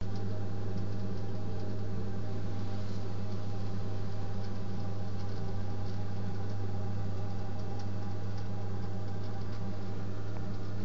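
Protherm Lynx 24 kW gas boiler running: a steady low hum with an even hiss over it.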